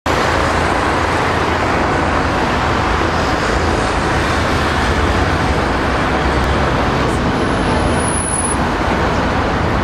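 Steady city street traffic noise: a continuous wash of passing road vehicles.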